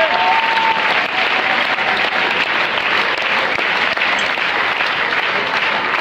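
Audience applauding steadily: dense, even clapping from a large crowd in a hall.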